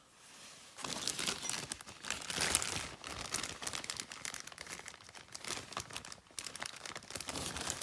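A plastic zip-top parts bag crinkling and rustling as it is handled, in irregular crackles starting about a second in.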